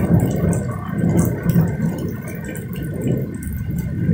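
Heavy rain falling steadily on wet paving and puddles, a continuous hiss flecked with many small drop ticks.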